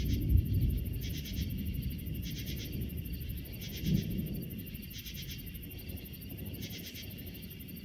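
Thunder rumbling low and dying away, with a fresh low rumble about four seconds in. Insects call in a pulsing rhythm about once a second.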